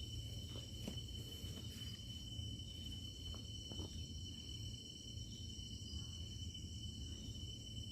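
A steady chorus of crickets and other insects, several continuous high trills at once, over a low steady rumble, with a few faint ticks.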